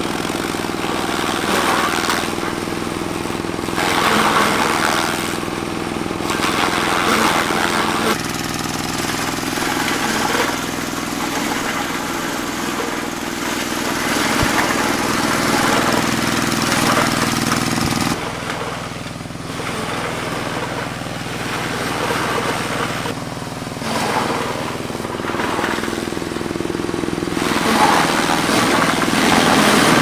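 Small engine-driven forage chopper running steadily while green corn stalks are fed into it, with repeated louder rushes of cutting and blowing noise as the stalks go through. The engine note changes abruptly twice.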